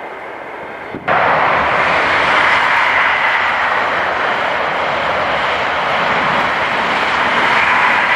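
East Coast express passenger train passing at speed: a loud, steady rush of wheels on rail and air that comes in abruptly about a second in.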